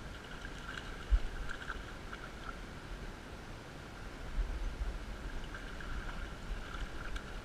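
River water running and gurgling, with light splashing from a hooked trout at the surface. A single sharp knock about a second in, and low rumbling on the microphone from about halfway.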